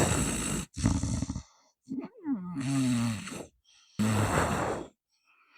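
A man's forced nasal breaths with his chin tucked down, about four noisy breaths in and out, some with a low snore-like rattle. The rattle comes from the airway narrowed by the tucked chin, and the more the chin is pulled in, the louder the noise.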